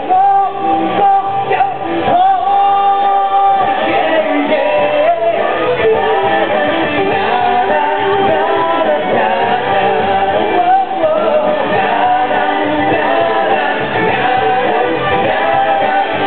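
A man singing into a microphone over loud amplified pop-rock music on stage.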